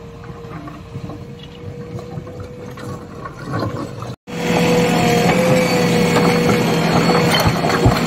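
JCB 3DX backhoe loader's diesel engine running steadily with a constant whine over it, fainter and distant at first, then much louder and close up after an abrupt cut about halfway through, with a few knocks.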